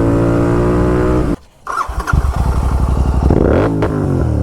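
Royal Enfield Continental GT 650's parallel-twin engine, loud through a Red Rooster aftermarket exhaust. It holds a steady rev, cuts out abruptly about a second and a half in, then comes back with a run of sharp exhaust crackles and pops over a low note, and revs up again near the end.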